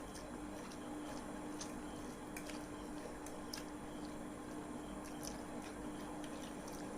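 Faint sounds of eating spicy instant noodles: soft squishy chewing and slurping with scattered small clicks, over a steady low hum.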